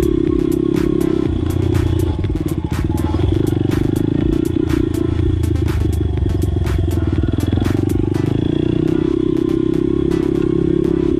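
Honda CRF100F's small single-cylinder four-stroke engine running as the dirt bike is ridden, the throttle rising and falling and briefly backing off a couple of seconds in. Many short sharp clicks sound over the engine.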